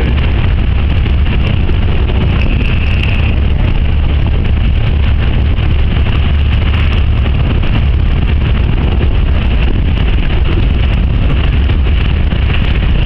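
Steady rumble of the tow vehicle driving along the canal bank, with wind buffeting the microphone.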